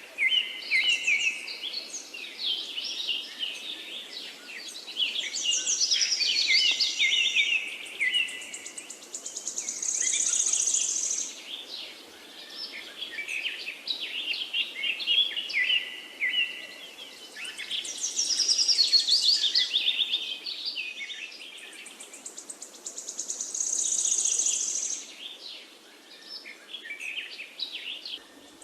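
Forest songbirds singing in dense overlapping chirps and warbled phrases, with a high buzzy trill coming in twice, over a faint steady rush of river water.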